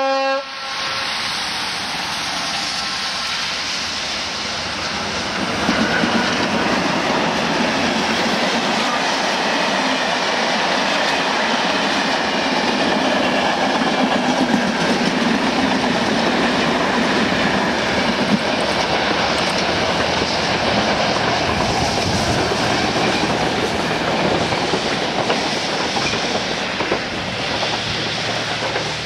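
A ZSSK class 240 electric locomotive's horn note cuts off in the first half second, then the locomotive and its passenger coaches run past, wheels clattering over the rail joints. The rumble grows louder about five seconds in and holds steady as the long line of coaches goes by.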